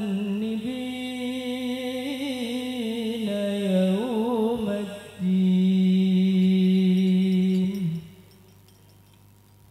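Male voice chanting shalawat unaccompanied, drawn-out and melismatic, with quick ornamented turns about four seconds in. It then holds one long steady note for nearly three seconds and breaks off near eight seconds.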